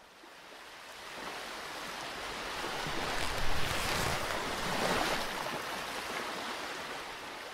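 Ocean surf sound effect: a wash of waves fading up from silence, swelling to its loudest around the middle, then easing off.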